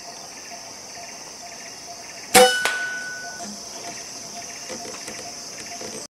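A single air rifle shot about two seconds in: a sharp report with a brief ringing tone, then a fainter click. Insects buzz steadily at a high pitch throughout.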